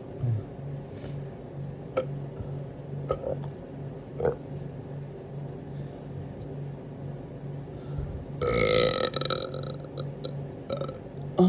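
A person burping: a few short burps and clicks of the throat early on, then a longer, louder burp about eight seconds in, over a steady low hum.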